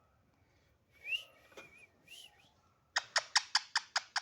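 Pet parrot giving short, high whistled notes that glide upward, then a rapid run of about eight sharp chirps near the end.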